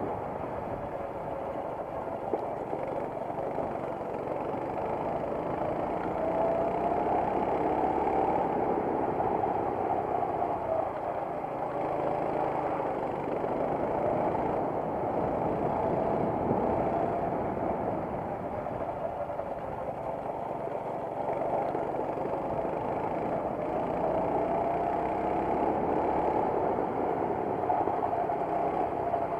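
Racing kart engine heard from on board during a lap, running continuously with its pitch rising and falling again and again as the kart speeds up and slows down through the corners.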